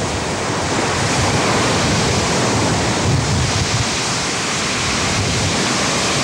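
Sea surf breaking and washing on the shore, a steady loud rush, with wind buffeting the microphone in low rumbling gusts.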